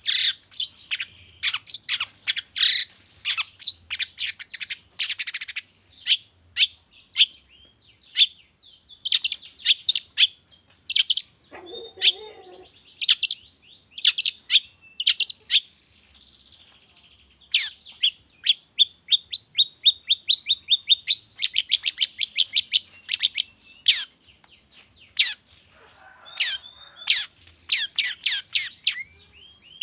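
Long-tailed shrike (cendet) singing: rapid runs of short, sharp chattering notes with fast rattling trills, broken by a brief pause partway through.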